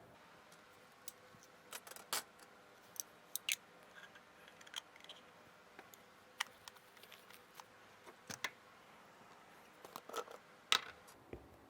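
Irregular light clicks and taps, a couple of dozen scattered through, the loudest just before the end, over a faint steady background hum.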